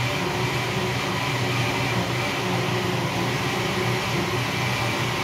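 Steady machine hum, even in level throughout.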